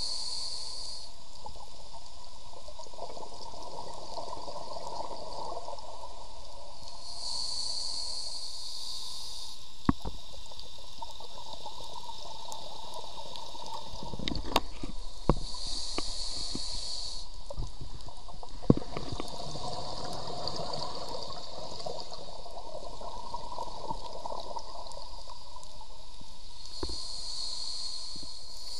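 Scuba diver breathing through a regulator underwater: a short hiss with each inhalation, about every eight to ten seconds, alternating with longer bubbling exhalations. A few sharp clicks and knocks come near the middle.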